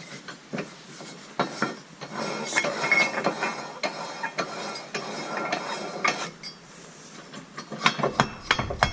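Metal parts of a golf cart clutch clinking and clattering as they are handled and fitted together, with a run of small knocks and a few louder clanks near the end.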